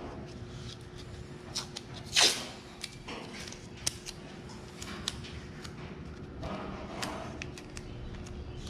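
Masking tape being pulled off the roll and pressed onto a car body panel: a short loud rip about two seconds in, a longer, softer one near seven seconds, and small clicks and taps in between, over a faint steady hum.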